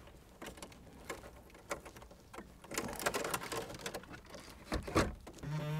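Light clicking and rustling of loose wiring and plastic dash parts being handled as cables are routed behind a car dashboard, busiest around the middle, with a sharper knock near the end.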